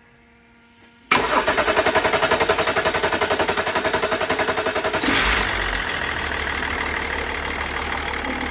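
BMW M57 straight-six turbodiesel being cranked by the starter. It cranks for about four seconds with an even pulsing rhythm, then catches about five seconds in and settles to a steady idle: the new fuel pump is now getting fuel to the engine.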